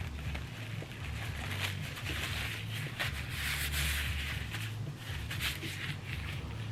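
Close-miked chewing and mouth sounds with a few scattered clicks, over a steady low hum.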